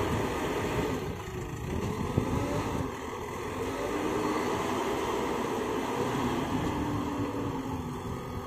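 JCB backhoe loader's diesel engine running under load, its pitch rising and falling as it revs up and down while it works.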